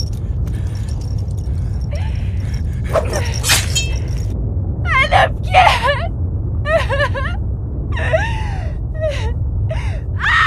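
A woman sobbing and gasping, in short wavering, breaking cries that start about three seconds in, over a steady low rumble.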